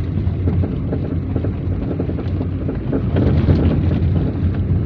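Steady road and wind noise inside a moving car, a continuous low rumble with wind on the microphone.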